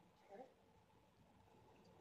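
Near silence: faint room tone, with one brief faint mouth sound just under half a second in as a bite of pizza is taken.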